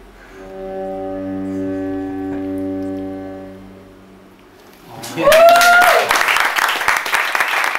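Cello bowed on one long sustained note, swelling and then fading out. About five seconds in, applause breaks out together with a cheer.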